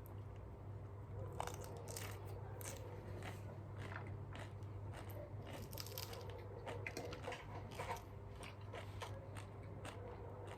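A person chewing and biting crunchy cabbage: a continuous run of irregular crisp crunches.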